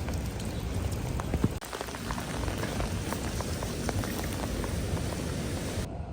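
Rain falling: a steady hiss with many scattered drop ticks.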